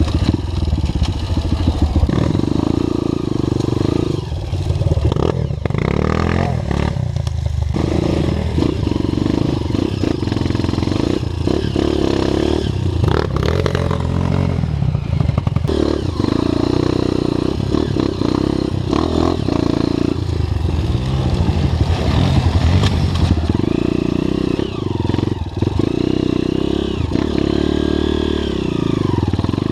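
Off-road trail motorcycle engine running under load, its pitch rising and falling as the throttle is worked, with scattered knocks and clattering.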